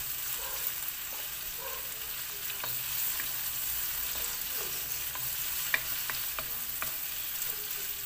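Ground pork with garlic and onion sizzling in oil in a wok while a wooden spatula stirs and scrapes it, with scattered knocks of the spatula against the pan, the sharpest a little after halfway. The lean pork sizzles without much spattering.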